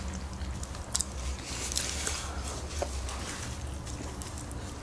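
Close-miked chewing and mouth sounds of someone eating sushi rolls, with a few faint clicks.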